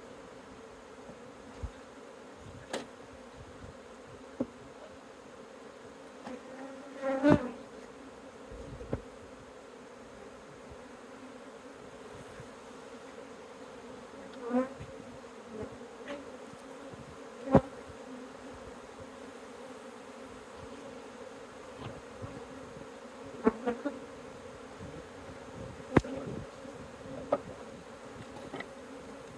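A large honeybee swarm buzzing as a steady hum, with single bees swelling loud as they fly close by now and then. Sharp knocks and clicks come about a dozen times, the loudest about two-thirds of the way through.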